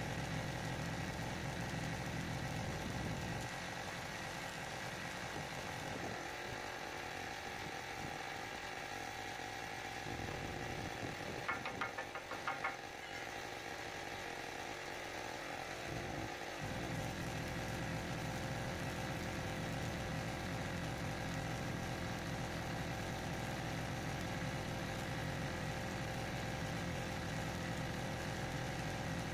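Steady engine-like machine drone with several even tones. Its deep low hum drops away for part of the time, and a quick run of clicks comes about twelve seconds in.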